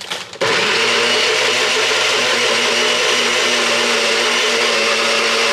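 Electric blender switched on about half a second in and running steadily at one speed, blending cottage cheese, maple syrup and vanilla into a batter.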